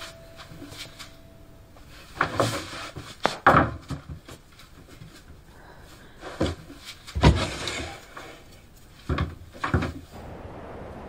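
Wooden planks of a door or wall knocked and rattled: about nine sharp knocks in short clusters of two or three, a few seconds apart.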